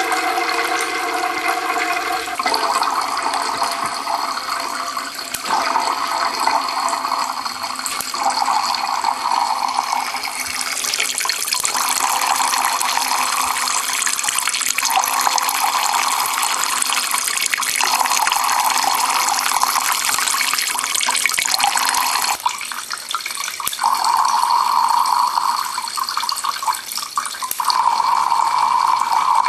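Water from a Kelvin water dropper's two nozzles streaming and splashing into its collecting cans, a steady running-water sound that swells and eases every few seconds.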